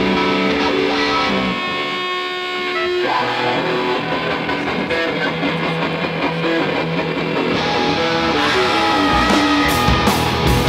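Live punk rock band playing loud: held electric guitar notes and bass, with the drums coming in hard near the end in a steady beat.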